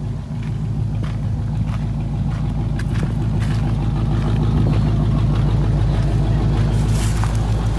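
Engine and road noise of a slowly moving vehicle heard from inside its cabin: a steady low drone that grows a little louder about halfway through.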